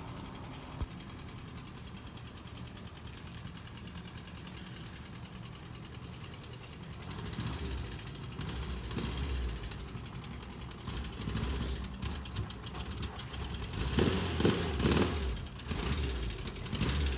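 Air-cooled flat-four engine of a 1976 VW Westfalia bus running just after a cold start, with the noise the owner puts down to its hydraulic lifters on a cold morning. The sound grows louder and more uneven from about seven seconds in.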